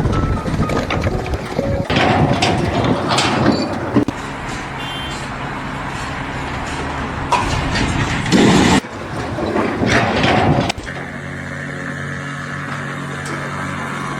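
Heavy vehicle and machinery noise, changing abruptly several times, with noisy clattering stretches; from about two-thirds of the way in, a steady engine drone.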